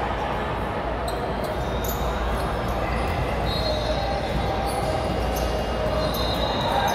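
Basketball game in a large echoing gym: a ball bouncing on the hardwood court, short high sneaker squeaks, and a steady background of many voices.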